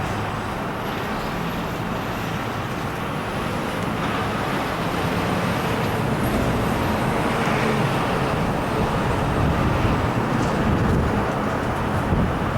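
Steady rumbling vehicle noise that slowly grows a little louder.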